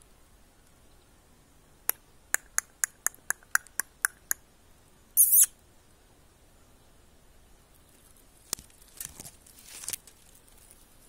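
Nestlings in a nest giving a brief high-pitched begging squeal, preceded by a run of about nine short sharp ticks at roughly four a second. Near the end, spruce branches rustle against the phone as it pulls back.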